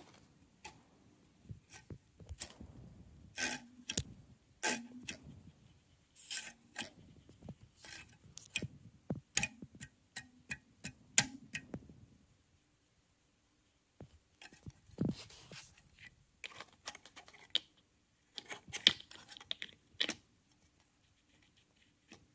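Hands handling a plastic computer cooling fan from a power supply: irregular clicks, taps and rattles of the plastic blades and frame, with a pause of a second or two midway.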